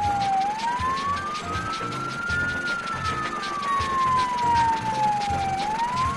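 Fire truck siren in a slow wail, its pitch falling, rising over about two seconds, falling over about three, then rising again, over background music with a steady beat.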